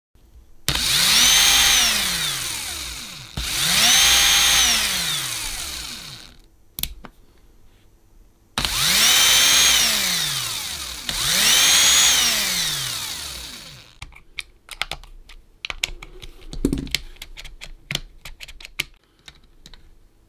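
Cordless drill's motor run in four short bursts of about two and a half seconds, each spinning up and then winding down. After the fourth, a scatter of light clicks and knocks.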